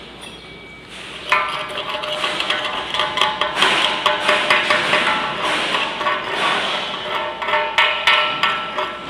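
Chipping hammer rapidly striking the fresh welds on a steel tank flange to knock off the slag, starting about a second in. Each blow sets the steel ringing.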